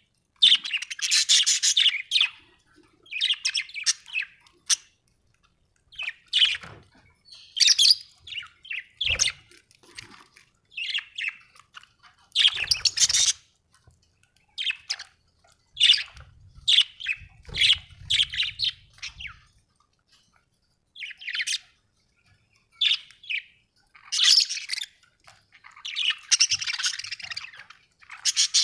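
Budgerigar chirping and warbling in short bursts of high, rapid chirps with brief pauses between them.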